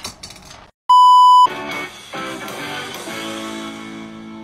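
A loud, steady electronic beep about half a second long, about a second in, then music with held chords.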